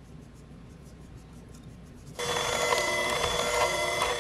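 Faint, evenly repeated scratching of almond flour being rubbed through a wire-mesh sieve by hand. About two seconds in, a KitchenAid electric hand mixer switches on and runs with a steady whine, beating the sifted flour into butter for cookie dough.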